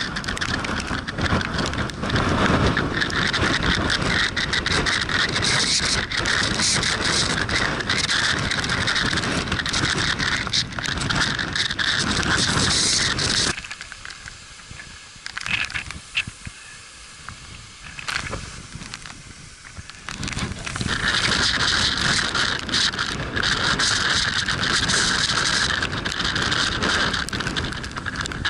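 Storm wind buffeting the microphone in heavy gusts. It eases off for several seconds around the middle, then blasts again.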